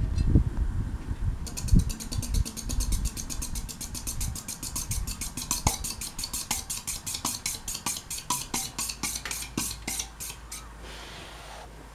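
Hunter Stratford ceiling fan running on its high speed, with a rhythmic ticking of about six or seven clicks a second that fades out near the end. A low rumble is heard in the first second or so.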